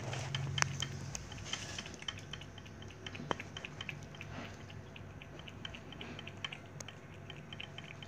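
Cat eating wet food from a small dish: many quick, small wet clicks and smacks of licking and chewing. A low hum underneath stops about a second in.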